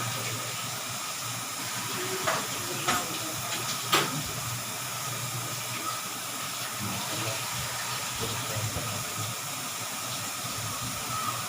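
Electric oven roasting chicken on a turning spit: a steady hum and hiss of the running oven, with a few sharp clicks about two, three and four seconds in.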